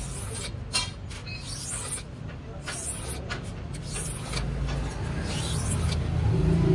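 Repeated scraping strokes of a cutter scoring a clear acrylic sheet along a straightedge, roughly one stroke a second. A low hum grows louder near the end.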